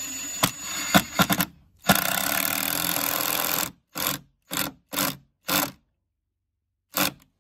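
Ryobi cordless impact driver driving a screw through a door hinge into the jamb. A few brief starts are followed by about two seconds of continuous running, then four short bursts and a last one near the end as the screw is snugged down.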